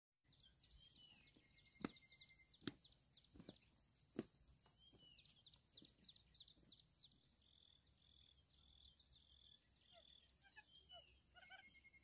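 Faint forest ambience: a steady high insect drone with scattered bird chirps, and a few sharp snaps of footsteps through the cut brush in the first few seconds.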